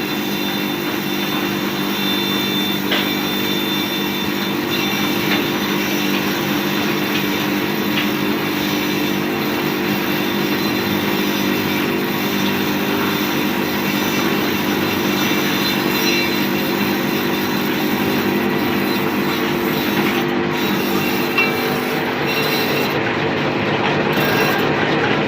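Bamboo skewer and chopstick sharpening machine running steadily, a continuous mechanical hum and whirr.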